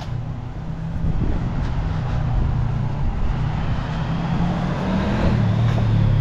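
Street traffic: a car and a motorcycle approaching along the road, their engine noise growing steadily louder.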